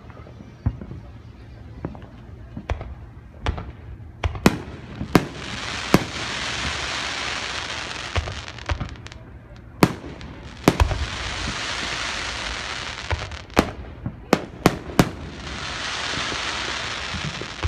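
Aerial fireworks display: many sharp bangs of shells bursting at irregular intervals, with three stretches of steady hiss a few seconds each.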